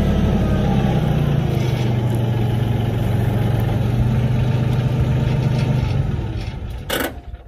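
Tractor engine running steadily, then dying away about six seconds in, followed by a single sharp knock near the end.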